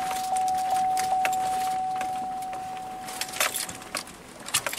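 Keys jingling with light clicks inside a pickup truck's cab, over a single steady tone that fades out over about four seconds.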